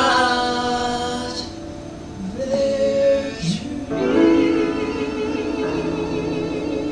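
Vocal ensemble singing in harmony: a held note fades away, a short note follows, then about four seconds in the voices hold a long chord with vibrato.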